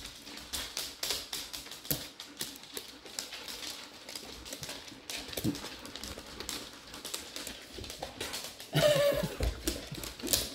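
Dogs' claws clicking and tapping irregularly on a hard floor as the dogs move about. A brief vocal sound comes about nine seconds in.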